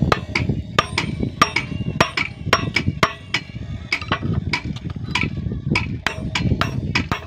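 A steel hammer strikes repeatedly, about three blows a second, driving a nail through the base plate of an adjustable steel formwork prop into a timber plank. Each blow is a sharp knock, and some leave a short metallic ring.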